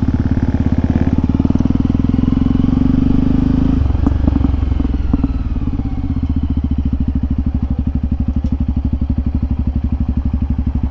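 Motorcycle engine running close by as the bike is ridden along a dirt trail, a steady throb of firing pulses. The revs drop about four seconds in, with a few knocks and clatters, and the engine then runs on at the lower, steady note.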